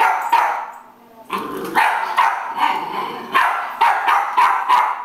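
Jack Russell Terrier puppy barking at a moving broom in a rapid string of short, high yaps, about nine, with a brief pause about a second in.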